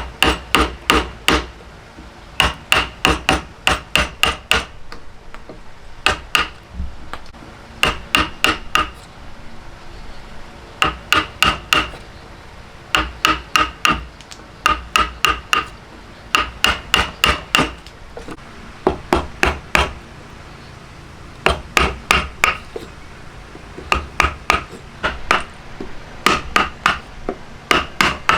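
Hammer striking in quick bursts of four to six blows with short pauses between, each blow ringing briefly.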